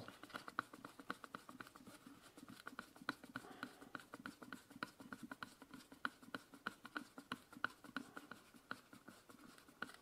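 Hand screwdriver driving a wood screw through a steel ring plate into the wooden birdhouse: a faint run of small clicks and creaks, several a second, as the screw turns into the wood.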